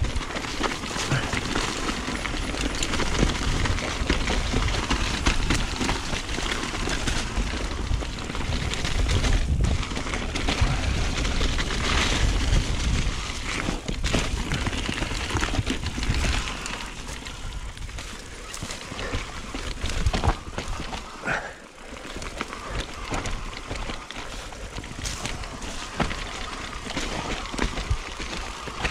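Mountain bike rattling down a trail over wet roots and leaves: tyres running on dirt, with repeated sharp knocks and clatter from the bike. A low rumble runs under it, heavier in the first half.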